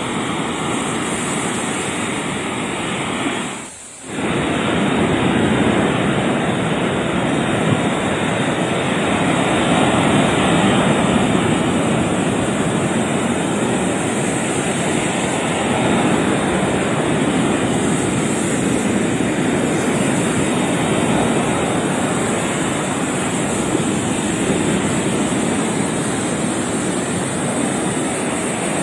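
Ocean surf breaking and washing up the shore: a steady rush of water that swells and eases, with a brief dip about four seconds in.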